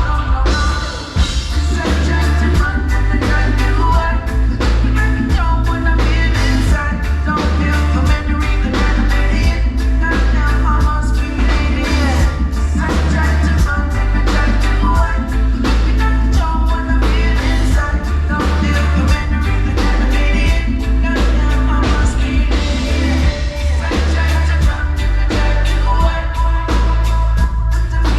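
Live reggae band playing a song, with singing over electric guitar, heavy bass and drums keeping a steady beat, heard from the audience in a hall.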